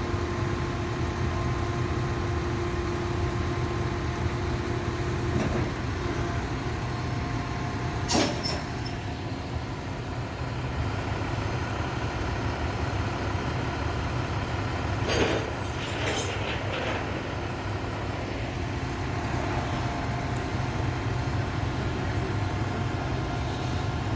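Heavy-truck diesel engines idling with a steady low rumble and hum. There is a sharp knock about eight seconds in and a short run of knocks around fifteen seconds in.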